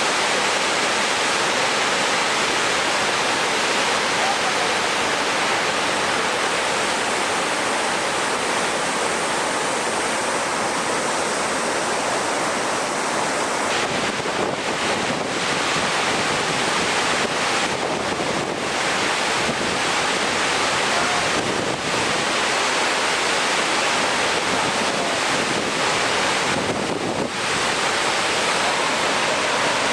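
Steady, loud rush of water with no letup, the hiss dipping briefly a few times in the second half.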